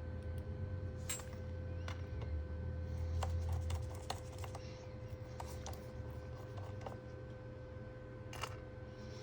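Scattered light clicks and taps of small laptop parts being handled while the MacBook Pro is reassembled, over a steady low electrical hum.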